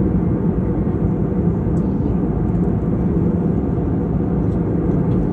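Airliner cabin noise in flight: the engines and airflow make a steady, loud drone with a low hum.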